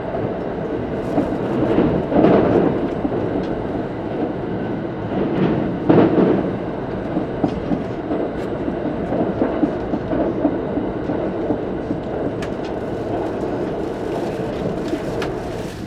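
Thunderbird limited express train running, heard from on board: a steady rumble of wheels on rails, with two louder swells about two and six seconds in.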